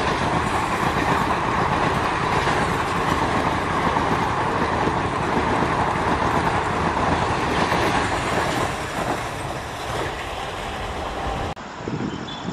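ICF passenger coaches of an express train passing close at speed: a loud, steady rush of wheels on rail. About 11.5 s in, it cuts off abruptly to a quieter background.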